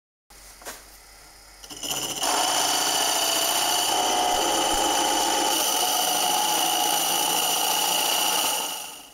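Wood lathe boring into the end grain of a spinning workpiece with a 30 mm carbide-tipped cup boring bit (Woodwork series 512) fed from the tailstock. The cut sets in about two seconds in as a steady, high-pitched whining cut, then fades away near the end.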